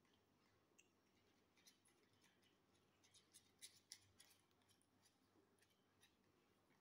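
Near silence with faint, scattered small clicks, which bunch together in a quick run about three to four seconds in.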